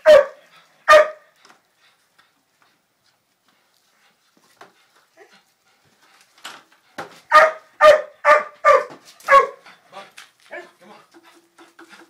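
Dog barking at a bird out of its reach: two barks at the start, a pause of several seconds, then a quick run of about five barks followed by a few smaller yips.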